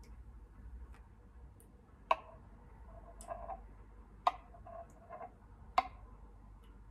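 Sharp, irregular clicks: three louder ones about two, four and almost six seconds in, with fainter ticks between, over a faint low hum.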